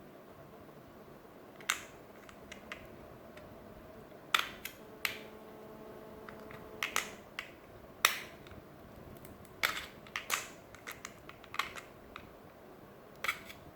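A knife blade prying and scraping at the glued-down screen glass of a small plastic smartwatch: irregular sharp clicks and short scrapes, about a dozen in all. The glass is being forced off by hand without heat to soften the adhesive.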